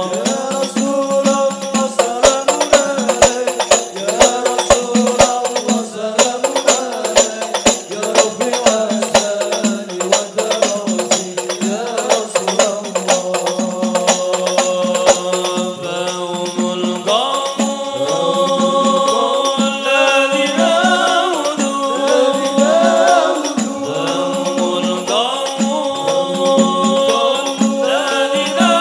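A group of men chanting shalawat in Arabic together through microphones, with hand percussion. The strikes are dense in the first half and thin out in the second, where the voices carry on in wavering, ornamented lines.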